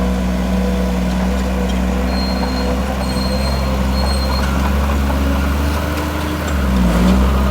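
Heavy diesel engine of earthmoving machinery running steadily, its note dipping and then picking up again, a little louder, near the end.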